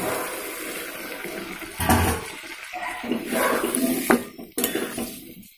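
Boiled chickpeas and potato chunks dropping into a steel kadai of hot, oily masala with a wet splash and sizzle, loudest about two seconds in. A steel spatula scrapes and stirs them, with a few sharp knocks against the pan near the end.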